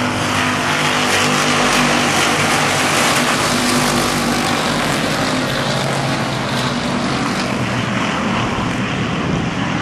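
A pack of IMCA hobby stock race cars on a dirt oval, many engines running hard together in a loud, steady mix.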